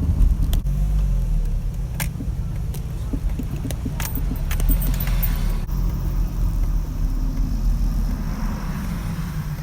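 Peugeot 306 XSi driving: a steady low engine and road rumble heard from inside the car, with scattered clicks and a short metallic jingle about four to five seconds in.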